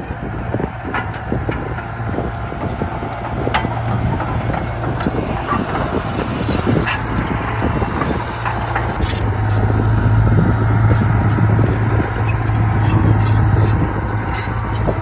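Heavy diesel earthmoving machinery running steadily under load, with frequent metallic clanks and rattles on top. The engine note swells for a few seconds past the middle.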